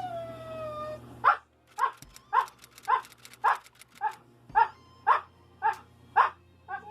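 Siberian husky vocalizing on cue: a drawn-out call falling in pitch, then about eleven short barks at an even pace of roughly two a second. The husky is counting out an answer with its barks, twelve in all, the number of letters in a name.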